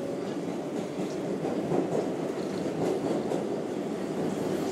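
Steady rumble of an R188 subway car (a converted R142A) running on the rails through the tunnel, heard from inside the car, with a few faint clicks of the wheels.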